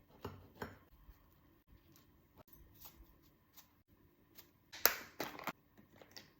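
Scattered short clicks, taps and rustles of hands handling food and kitchen items, loudest in a brief cluster about five seconds in.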